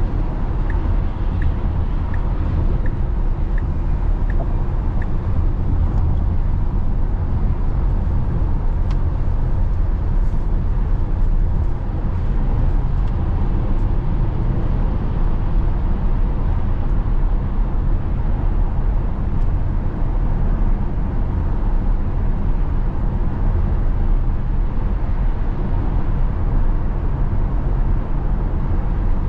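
Steady tyre and road noise heard from inside the cabin of a Tesla electric car cruising at freeway speed, with no engine sound. A light regular tick, about two a second, sounds over it for the first five seconds.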